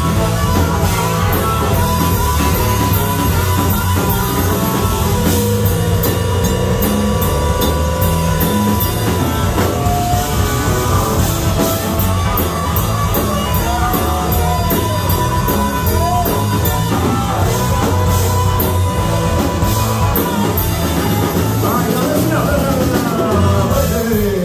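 Live rock band playing an instrumental passage: drum kit, electric bass and electric guitar under harmonica and saxophone lines, with wavering, bending melody notes toward the end.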